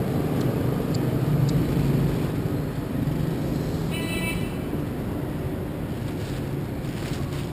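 Steady rumble of passing road traffic. A short high beep sounds about four seconds in, and a plastic bag crinkles faintly as hands rummage in it near the end.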